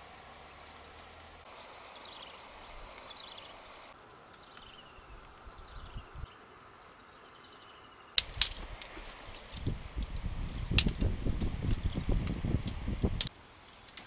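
A rabbit chewing leafy greens close up: sharp crackling crunches over a low rumble, starting about eight seconds in and cutting off suddenly shortly before the end. Before that there is only faint background with a few short descending chirps.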